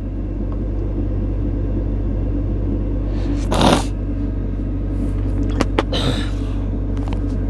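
Steady low rumble and hum inside a truck's sleeper cab. A short rustle of handling noise comes about three and a half seconds in, and a few light clicks follow near the end.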